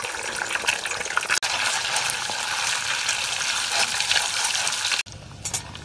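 Eggs sizzling in hot oil in a wok, a steady crackling hiss, while a metal spatula stirs and scrambles them. About five seconds in the sound drops away abruptly and goes much quieter.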